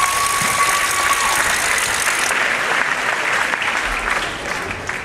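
Audience applauding, with one long whistle from the crowd over the first second and a half; the applause dies down near the end.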